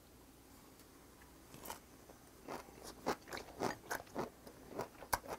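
A person chewing a hot mouthful of blanched sea cockle and spinach, making a run of irregular wet mouth clicks that start about a second and a half in.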